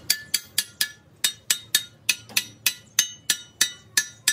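Hand hammer striking a square steel tube, about four ringing metal-on-metal blows a second in quick groups of three or four.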